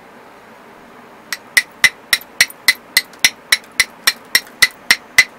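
Hammer stone striking the edge of an obsidian slab in quick, even, sharp taps, about three or four a second, starting a little over a second in. The taps rough in the tip by knocking small flakes off the edge.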